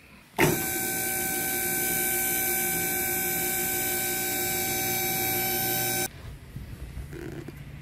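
Electric hydraulic pump motor of a car lift running with a steady, loud hum as the lift raises the car. It starts abruptly and cuts off suddenly after about six seconds.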